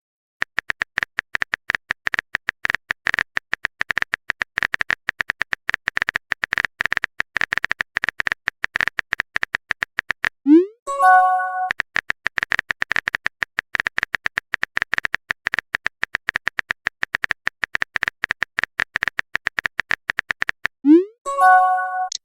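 Rapid, irregular keyboard-typing clicks from a texting sound effect. They are interrupted twice, about halfway through and near the end, by a short rising pop and a brief chime, like a message-sent notification.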